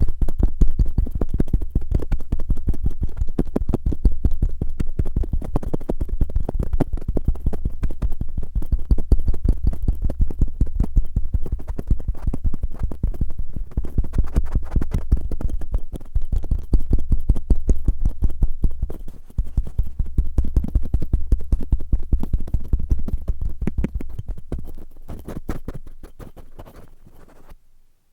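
Cotton swabs scratched and rubbed roughly against an ear microphone, in rapid, dense strokes with a low rumble beneath. The strokes thin out and fade away over the last few seconds.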